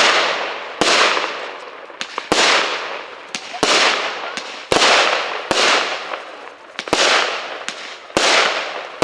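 Royal Fireworks 'Gate of Heaven 2' firework cake firing its shots in sequence: a sharp loud bang about once a second, the titanium salutes, each dying away in a hiss over about a second, with smaller pops in between.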